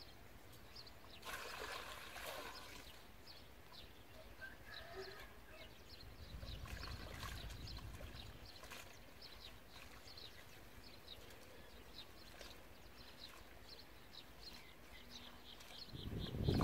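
Quiet outdoor ambience with short high chirps repeating several times a second, plus soft scraping and shuffling of dry dirt around two seconds in and again around seven seconds in.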